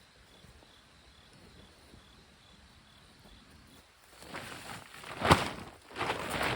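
Faint, regular insect chirping, about three chirps a second. About four seconds in, loud rustling and crunching starts, with a sharp thump just after five seconds.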